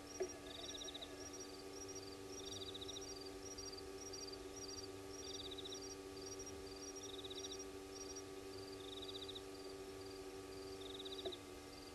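Night insects calling: a short high buzzing trill repeating about every two seconds over quick, higher paired chirps. A faint steady hum starts with a sharp click just after the start and stops with another click near the end, from the remotely operated camera's pan-and-zoom motor.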